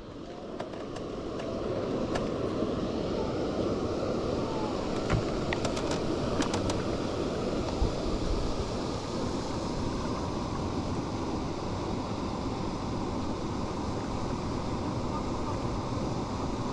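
Steady rushing noise of wind and water lapping, rising over the first couple of seconds, with a few faint ticks about five to seven seconds in.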